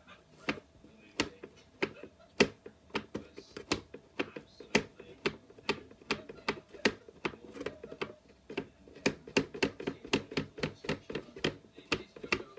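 Homemade cardboard-box guitar with rope strings stretched over small fence pieces, plucked again and again. Each pluck is a short, dull twang, and the plucks come quicker and closer together from about three quarters of the way in.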